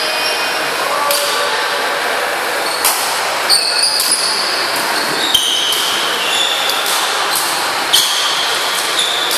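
Badminton rally: several sharp racket hits on the shuttlecock and short, high squeaks of court shoes on the wooden floor, over a steady hiss of the large hall.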